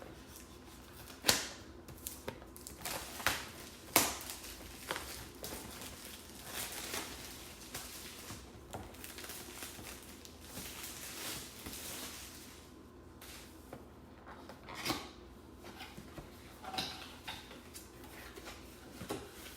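Cardboard box and packaging of a DJI Mini 2 Fly More Combo being opened and handled: scattered clicks and knocks, sharpest about a second in and again at four seconds, with rustling in between.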